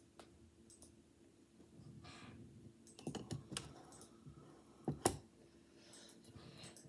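Faint handling noise: scattered clicks and taps as a smartphone in a plastic case is tapped, handled and held up, with a few louder knocks about three and five seconds in, over a low steady hum.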